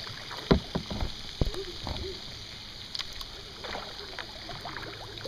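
Kayak paddling: water sloshing and dripping off the paddle, with three sharp knocks in the first second and a half. Faint distant talk from a radio broadcasting a baseball game sits underneath.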